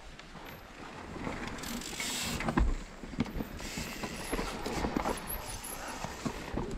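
Mountain bike ridden down a dirt trail: tyres rolling over dirt and roots, with the chain and bike parts rattling and clicking and sharp knocks over bumps. A louder rush and thump about two seconds in.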